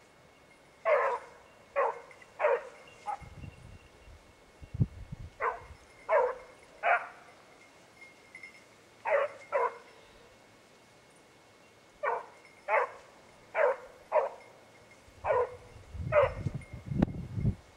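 Basset bleu de Gascogne hound baying on a rabbit: about fourteen short bays in bursts of two to four, a second or two apart. Low rumbling noise comes in around the fourth second and again near the end.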